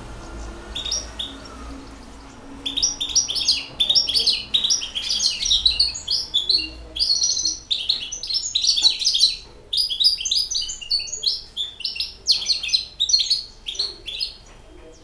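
Six-month-old hybrid finch, a goldfinch cross, singing in its cage: a fast, busy run of high chirps and twitters. A short phrase comes about a second in, then the song runs almost unbroken from about two and a half seconds until shortly before the end.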